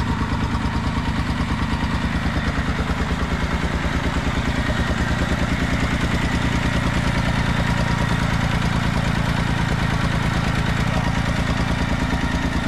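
Massey Ferguson 200 Turf tractor engine running steadily at low speed with an even pulse, getting slightly louder in the middle as the tractor creeps forward.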